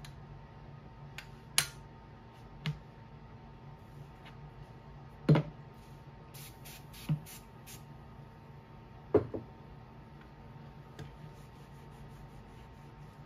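A Sprayway aerosol cleaner can sprayed in about five short squirts in quick succession, a little past the middle. Sharp knocks and taps of the model truck and can being handled on a wooden workbench come before and after, over a low steady hum.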